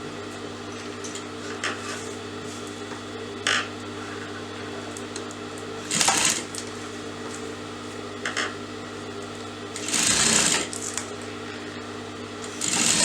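Electric sewing machine running steadily, stitching trim along a blouse neckline, with a few short louder bursts and a longer louder stretch near the end.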